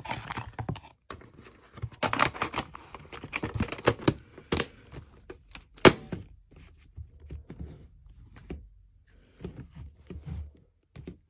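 Plastic VHS cases and a card being handled and stacked: an uneven run of clicks, knocks and rustles, with the sharpest knocks about four and a half and six seconds in.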